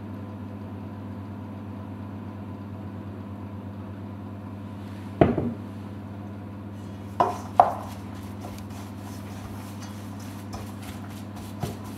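A wooden spoon stirring and scraping minced beans in a stainless steel bowl, with a few knocks of the spoon against the bowl. The stirring grows busier from about halfway, and there is a single knock a little before that. A steady low hum runs underneath.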